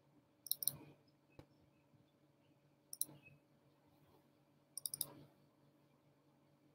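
Computer mouse clicking in short groups of two or three clicks: about a second in, near three seconds and near five seconds, with a single tick between, over a faint steady low hum.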